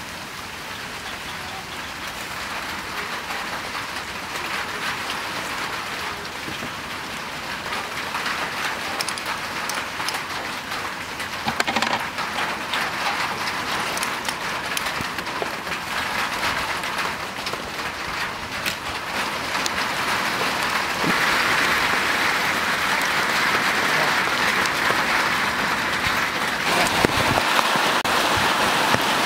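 A steady, even hissing patter that grows louder about two-thirds of the way through, with scattered light clicks.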